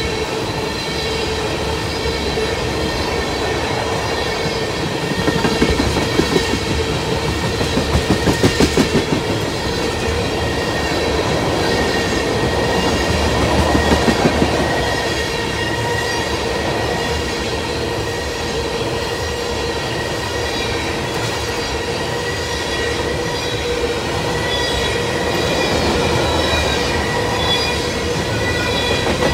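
Freight train of tank cars rolling past, steel wheels clattering over rail joints in rhythmic groups as each pair of trucks goes by, over a steady rumble with a high-pitched ringing tone running through it.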